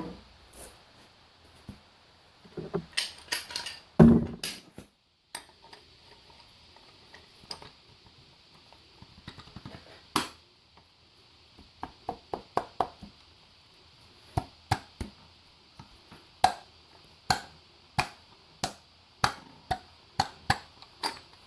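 Hammer taps driving a rear main seal wear ring onto the crankshaft flange of a 7.3 Powerstroke diesel: a cluster of heavier blows about three to five seconds in, then a steady run of sharp taps, roughly one every half second to one second, in the second half.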